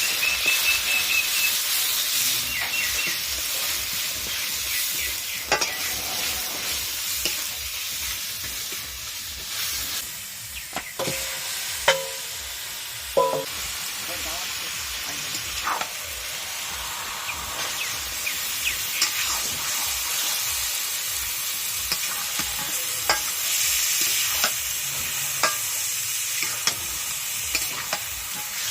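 Curry ingredients sizzling in hot oil in a cooking pan while being stirred, a steady hiss broken by the scrape and click of the stirring spoon. A few louder metallic knocks against the pan come about halfway through.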